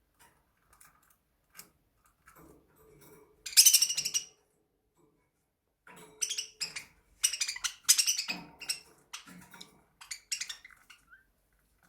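Irregular clinks and scrapes against a dish, with the loudest burst about three and a half seconds in and a run of strokes in the second half.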